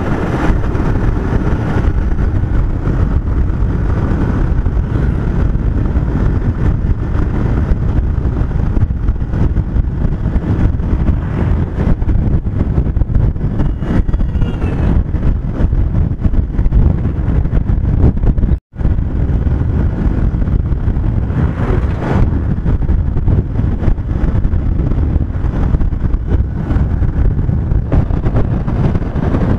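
Motorcycle riding at a steady cruising speed: wind rushing over the microphone mixed with the engine and road noise. The sound cuts out for a split second about two-thirds of the way through.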